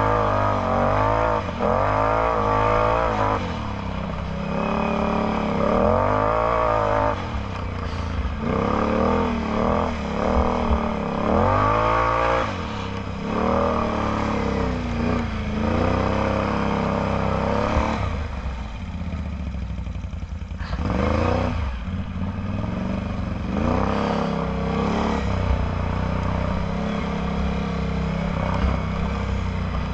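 Can-Am Outlander X MR 850 ATV's V-twin engine through a Yoshimura slip-on exhaust, revving up and down again and again as the throttle is worked, easing off for a few seconds a little past the middle before picking up again.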